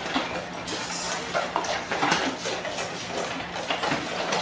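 Dogs eating from stainless steel bowls set on a wooden bench: an irregular run of clinks, clatters and scrapes as their muzzles and food knock against the metal bowls.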